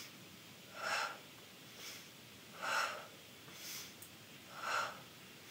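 A woman breathing hard under effort: three strong breaths about two seconds apart, with softer breaths between them.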